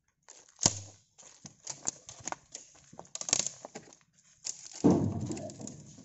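Dry rubber-tree branches and leaf litter crackling and snapping as the branches are dragged and handled: a scatter of sharp cracks and rustles, with a knock about half a second in and a louder, longer scraping rustle near the end.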